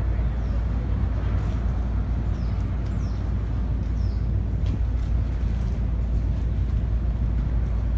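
Steady low rumble of a docked car ferry's engine running, holding an even level, with a few faint high chirps around the middle.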